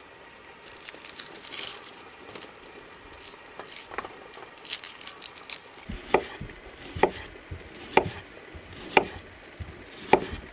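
Chef's knife slicing a red onion on a wooden cutting board, the blade knocking on the board about once a second from about six seconds in. Before that, only faint rustles and small clicks as the onion is handled.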